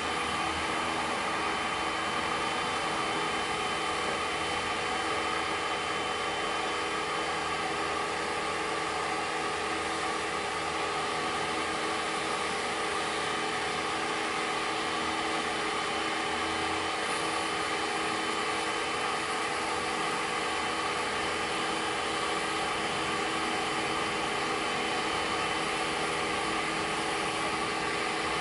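Pressure washer running steadily, its pump motor humming with a few fixed whining tones over the hiss of the water jet rinsing foam off a car.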